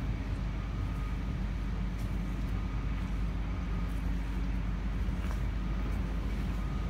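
Large diesel engine idling steadily, a low even rumble with a faint high whine over it.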